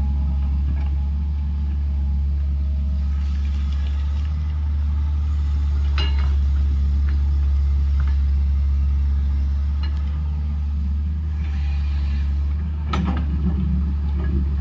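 Heavy diesel engine of an earthmoving machine running steadily under load, with a few sharp metallic clanks, the loudest near the end.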